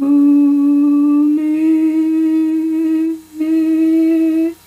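A single unaccompanied voice humming three long held notes, each a little higher than the last, with a short break before the third; it stops abruptly near the end.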